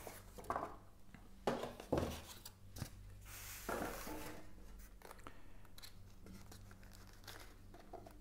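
Faint unpacking noises from cardboard packaging and a styrofoam tray: a few short scrapes and knocks in the first three seconds, a longer rustling scrape around three to four seconds in, then light crinkling of plastic wrap.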